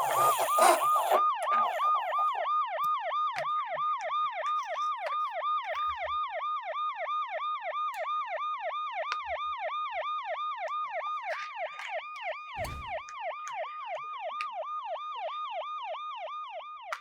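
Electronic toy siren sounding a fast repeating wail of about three to four falling sweeps a second, steady throughout, with a brief low thud of handling partway through.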